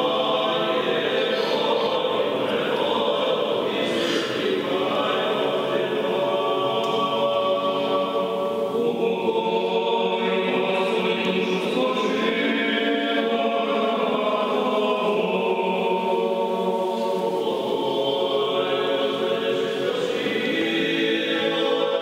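Orthodox church choir chanting, several voices singing slow, held notes together.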